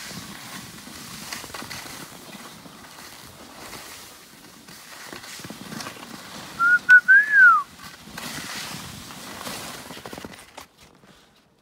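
Hiss and scrape of a rider sliding over snow. About seven seconds in comes a loud whistle: two short notes, then a longer one that rises and falls. The sliding noise stops shortly before the end.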